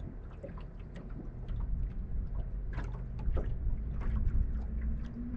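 Low rumble of a small fishing boat sitting on the water, with scattered light clicks and knocks; a steady low hum comes in near the end.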